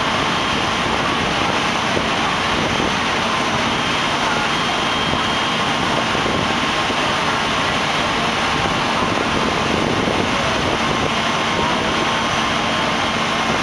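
Steady engine drone with a few faint steady tones over a constant noisy din.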